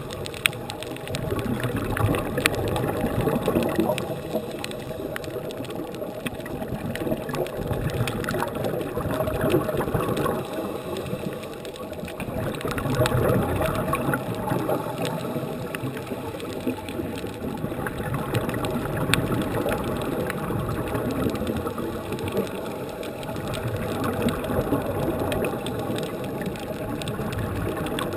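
Scuba breathing heard underwater: crackling bursts of exhaled regulator bubbles that swell and fade every five seconds or so, with occasional sharp clicks.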